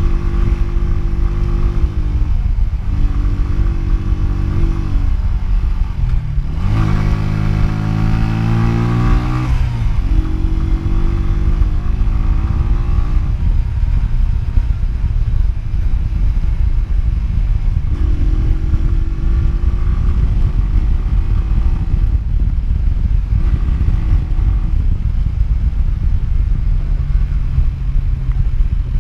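Honda CG125's single-cylinder four-stroke engine running at speed under a heavy low rumble of wind noise. About six seconds in, the engine note dips, then climbs sharply and holds high for a few seconds before dropping back.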